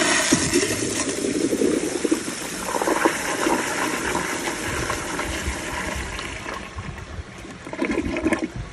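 Kohler Kingston flushometer-valve toilet flushing. The rush of water starts abruptly, is loudest for the first few seconds, then eases, with a short second surge near the end. A plastic grocery bag goes down easily in one flush.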